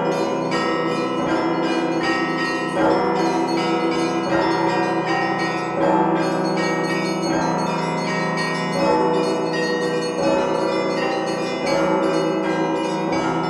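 Russian Orthodox church bells rung together, heard close up from the belfry tier: small bells struck in a fast, steady pattern over the lingering hum of the larger bells, with a heavier stroke about every second and a half.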